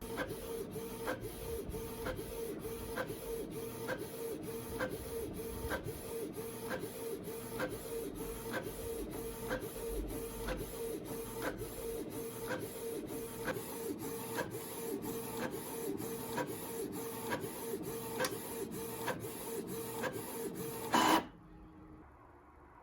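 A printer printing: a steady mechanical hum with regular clicks about once a second as the print head passes, stopping abruptly after a short louder burst near the end.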